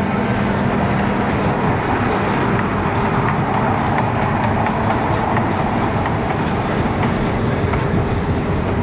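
Steady loud mechanical rumble with a low hum, from a fairground swing-chair ride's machinery running.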